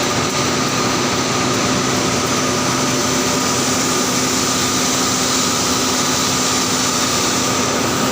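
Steady, loud machinery noise of a steel galvanizing line, a constant rushing din with a few steady hums and whines running through it, and no change.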